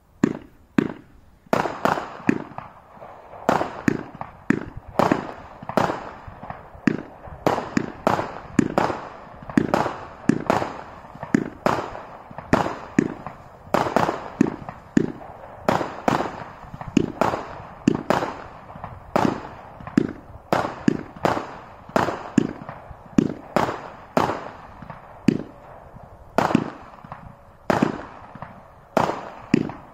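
Celtic Fireworks "Sunset Lights" multi-shot firework firing shot after shot: a steady run of sharp bangs, about one to two a second, each trailing off in a short echo.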